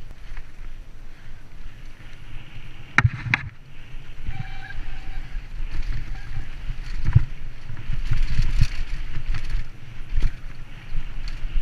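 Mountain bike ridden fast down a rocky dirt trail, heard from a helmet-mounted camera: steady wind rush and tyre rumble, with sharp clatters as the bike hits rocks and bumps, the loudest two about three seconds in and more about seven and ten seconds in.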